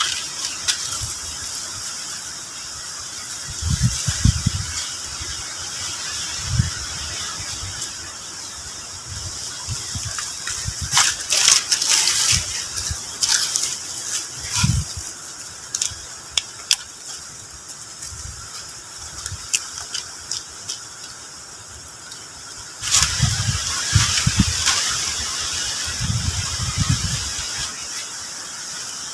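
Dry sticks and leaf litter rustling and cracking as a stick shelter's poles are handled and stepped around, with scattered sharp snaps and low thumps, over a steady high-pitched background drone.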